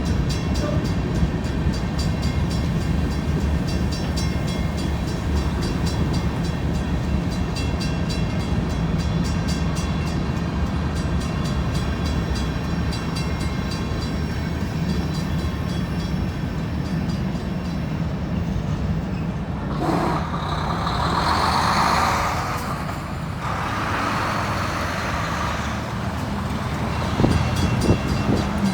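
CSX freight train cars rolling past with a steady low rumble. About three quarters of the way through, a louder hiss with a high ringing tone comes in, and a few knocks sound near the end.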